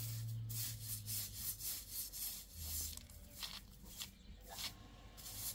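A broom and then a flat metal scraper rasping against the inside of a round pit oven as it is swept and scraped out. The short strokes come about two a second at first, then fewer and further apart.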